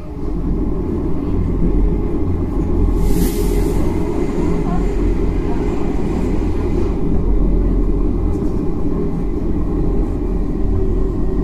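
Running sound heard aboard a Tokyo Metro 9000-series train: a steady low rumble of wheels on the rails, with a short hiss about three seconds in.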